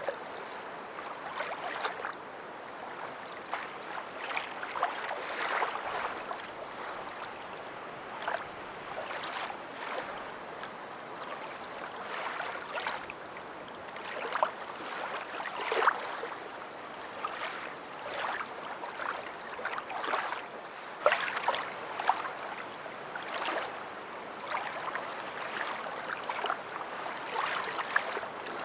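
Water lapping and splashing, with many small, irregular splashes over a steady wash.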